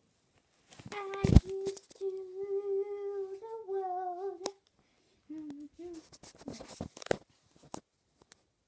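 A child humming a long held note that shifts slightly in pitch, then two short lower hums. There is a sharp knock about a second in.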